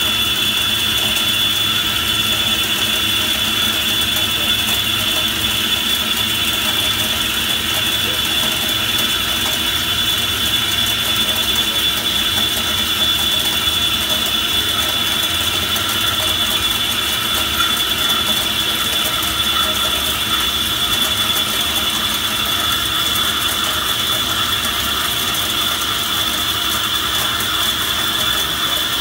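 Kennametal HTS drill cutting into a spinning metal workpiece on an Okuma LB15 CNC lathe under flood coolant: a steady high whine over the even hiss of coolant spray and machine noise.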